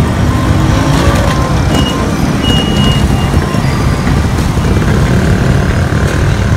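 Busy city street traffic: the steady low rumble of car, pickup and motorcycle engines, with motorcycles pulling past close by.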